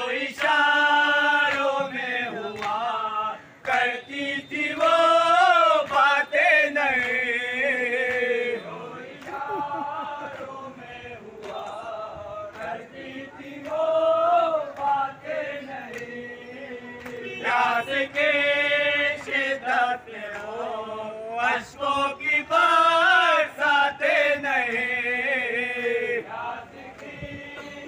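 Men chanting a noha, the Shia Muharram lament for Imam Husain. A lead voice sings long, wavering phrases, with other men's voices joining, and short breaks between the phrases.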